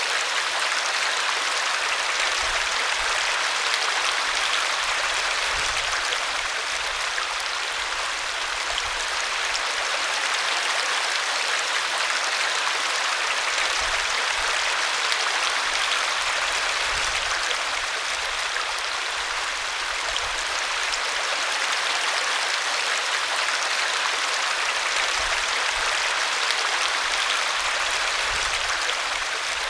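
Forest stream flowing: a steady, even rush of running water.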